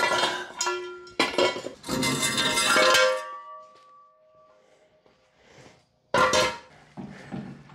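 Steel jack stands clanking and clanging as they are pulled from under the car and set down on a concrete floor. Several metal strikes ring on briefly, the loudest cluster about two to three seconds in, and another sharp clang about six seconds in.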